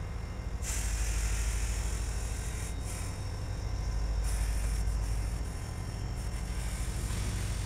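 Canadian Pacific freight train rumbling past, a steady low rumble and hum with a hiss above it that rises and falls a few times.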